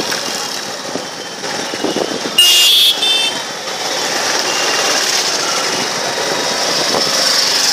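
Busy street traffic noise heard from a slow-moving vehicle, with one short, loud horn honk about two and a half seconds in.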